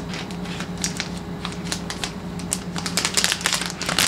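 Protective plastic wrap being peeled off a new iPad Pro, crinkling and crackling in irregular sharp ticks that grow denser and louder near the end.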